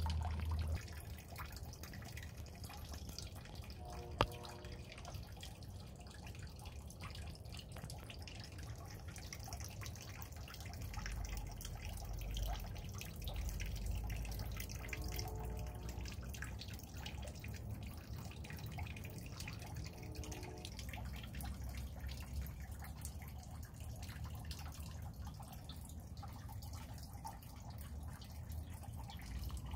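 Rain dripping and pattering on foliage and wet ground: a steady wash with many small irregular drips, and one sharp tick about four seconds in.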